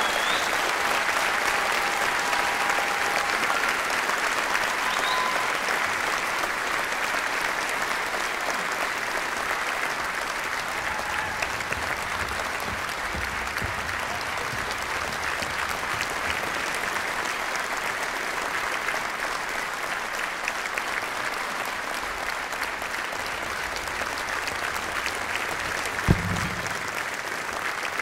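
Large theatre audience applauding steadily, loudest at first and easing off slightly. A single sharp thump near the end.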